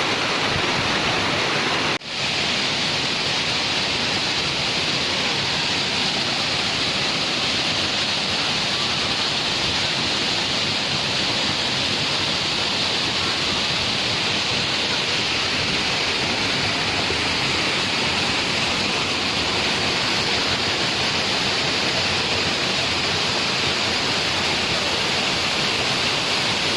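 Waterfall pouring steadily into its pool, an even rush of water that briefly drops out about two seconds in.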